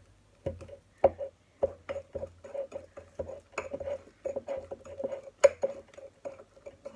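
Spoon stirring mug-cake batter in a ceramic mug, clinking against the mug's sides about three times a second in an uneven rhythm, with the loudest clink about five and a half seconds in.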